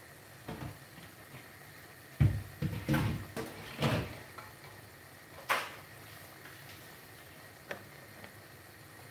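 Kitchen clatter of things being handled: a cluster of knocks and thuds about two to four seconds in, a sharper knock about five and a half seconds in, and a faint tap near the end.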